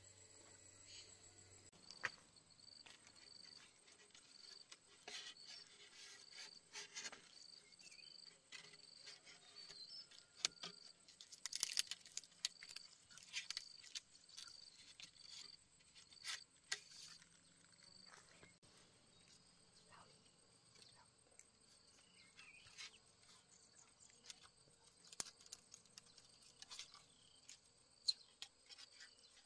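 Faint, steady, evenly pulsing chirping of insects, with scattered sharp clicks and scrapes from a small knife and hands working a green bamboo stem.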